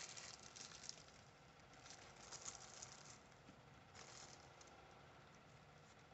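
Faint crinkling of a clear plastic bag as cold porcelain clay is handled inside it, in a few short bursts, otherwise near silence.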